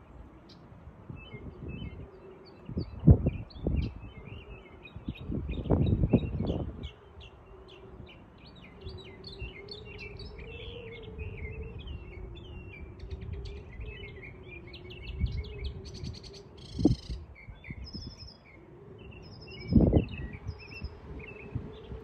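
Small songbirds chirping and twittering busily, with several gusts of wind rumbling over the microphone. A faint, wavering steady hum runs underneath.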